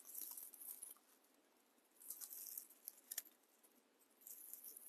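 Faint, dry rustling of raffia strands being handled, in three short spells with a couple of light clicks between them.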